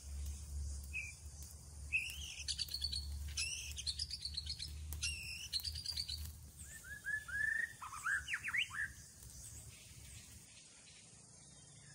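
Wild birds chirping and calling: quick runs of short, high chirps about two to six seconds in, then a string of lower sliding notes around seven to nine seconds in. A low steady rumble sits underneath through the first half.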